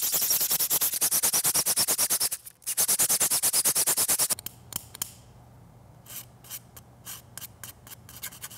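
Rapid back-and-forth rubbing of 220-grit sandpaper on a 3D-printed plastic tube, smoothing away the print's layer lines, with a short break about two and a half seconds in. Some four seconds in it gives way to quieter, separate scraping strokes of a needle file on the printed part.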